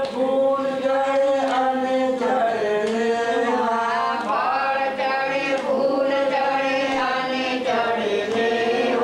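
A group of voices chanting a Hindu devotional mantra together, in long held notes that step up and down in pitch.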